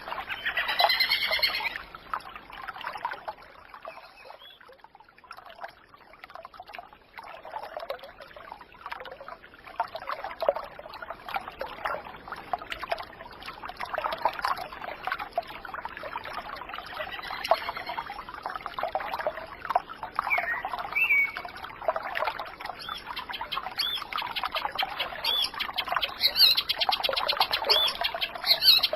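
Water trickling and babbling, like a small brook, with birds calling over it: a falling series of calls about a second in, a couple of calls around two-thirds of the way through, and a quick run of repeated chirps near the end.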